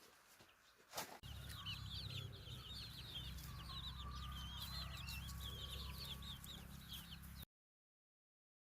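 Chickens clucking and cheeping in rapid high calls over a low hum. The sound starts about a second in and cuts off suddenly near the end.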